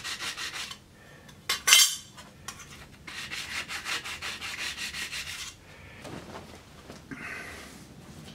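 Steel card scraper, held square in a wooden block, rubbed back and forth on a 1200-grit diamond sharpening stone to hone its edge. There are two runs of quick rasping strokes with a brief louder scrape between them, then softer handling noises near the end.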